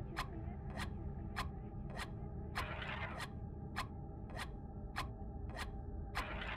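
Electronic backing track: sharp ticks evenly spaced about every 0.6 seconds over a low steady drone, with a scraping swoosh about two and a half seconds in and another near the end.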